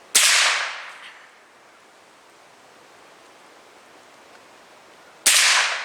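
Two shots from a CZ Scorpion, about five seconds apart, each ringing off over about a second.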